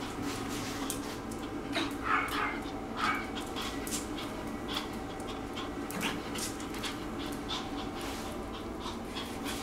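A three-month-old Pomeranian puppy gives a few short whimpers, about two and three seconds in, among scattered light clicks over a steady low hum.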